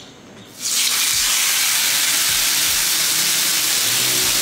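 Marinated chicken fillet sizzling loudly on a hot, oiled cast iron grill pan. The sizzle starts suddenly a little under a second in, when the fillet goes onto the pan, and then holds steady.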